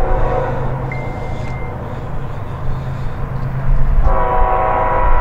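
Diesel locomotive air horn sounding a chord of several notes: one blast trails off about half a second in and a new long blast starts about four seconds in, over a steady low rumble.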